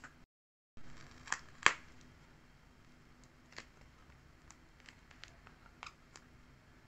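Handling of a glossy, tape-covered paper sticker book: two sharp crackles about a second and a half in, then light scattered clicks and crackles as a fingertip presses a paper sticker into place.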